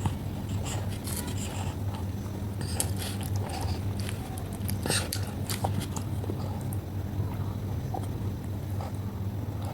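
A child biting into and chewing green grapes close to the microphone: scattered short wet clicks and crunches over a steady low hum.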